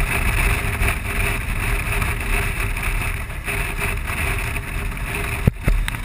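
Wind rush and the running of a BMW R1200 motorcycle's boxer-twin engine at road speed. About five and a half seconds in, two sharp knocks as the rider's gloved hand handles the camera.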